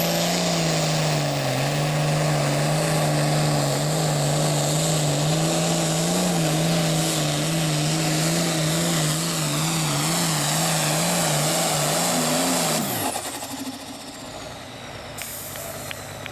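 Super Farm class turbocharged diesel pulling tractor under full load, running at high rpm with its engine note wavering up and down. About thirteen seconds in, the engine drops off with a falling pitch and a high turbo whine winds down, as the pull ends.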